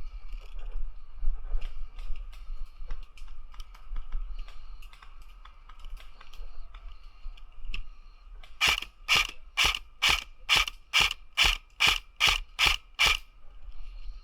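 Cyma M4 airsoft electric gun firing a quick, steady string of about eleven semi-automatic shots, a little over two a second, starting past the middle, each shot a sharp mechanical clack of the gearbox. Before it, scattered faint clicks and pops of airsoft fire.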